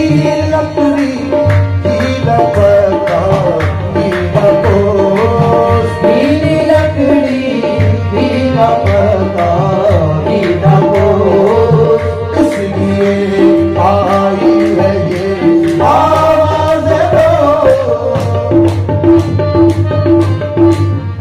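Qawwali music: voices singing over a steady tabla rhythm, with sustained held tones under the singing.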